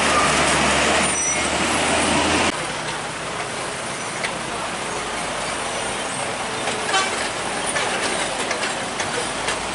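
Heavy dump truck's diesel engine running close by, cutting off abruptly about two and a half seconds in. After that comes quieter, steady road and tyre noise as a box truck rolls over a railway level crossing, with a brief toot about seven seconds in.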